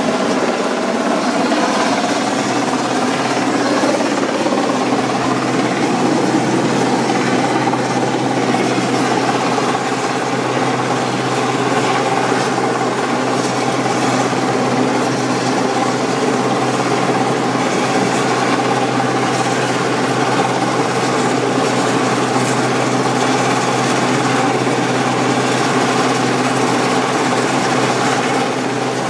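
RAF Sea King search-and-rescue helicopter hovering, its rotors and twin turbine engines giving a loud, steady drone with a low hum underneath.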